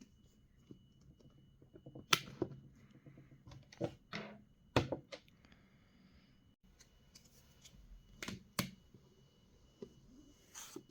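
Hands handling a Mac mini's box and packaging: scattered taps, clicks and knocks with short rustles of cardboard and paper, the loudest a few sharp knocks about two, five and eight seconds in.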